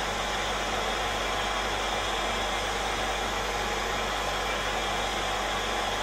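Zubr FT-P1600 1600 W heat gun running on its first, lower-airflow setting: a steady, even rush of blown air from its fan.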